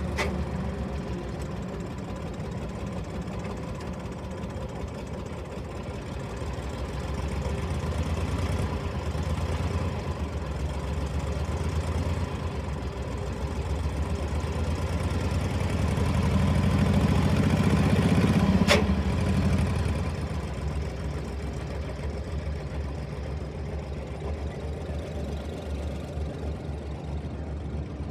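Ford 1710 compact tractor's 26 hp Shibaura diesel running as the tractor drives off. It grows louder for a few seconds about two-thirds through, with a single sharp click near the loudest point, then settles back to a steady rumble.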